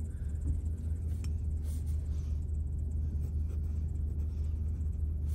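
Pen scratching as it writes on notebook paper, faint against a steady low rumble.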